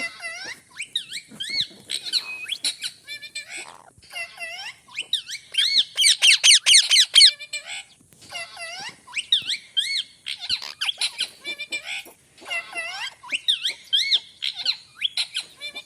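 Pet parrot calling: a string of short squeaky chirps and whistles, with a loud run of rapid warbling notes around six to seven seconds in.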